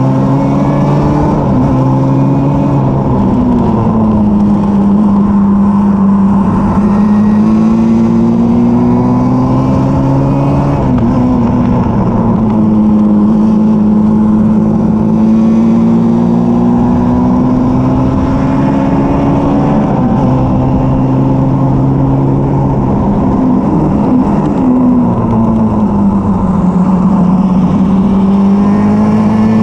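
A Formula Junior race car's engine heard from onboard at racing speed. Its note climbs, then drops back at each gear change or lift for a corner, several times over, over a constant rush of wind and road noise.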